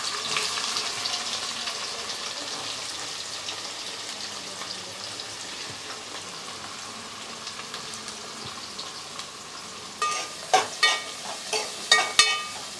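Chopped onions sizzling in hot oil in a metal pot, the sizzle loudest at first and slowly dying down. About ten seconds in, a metal spoon stirs them, clinking and scraping against the pot with a ringing sound.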